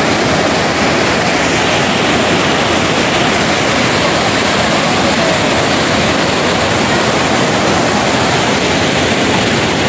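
Muddy river water pouring over the tiers of a stepped concrete weir waterfall: a loud, steady rush of falling water.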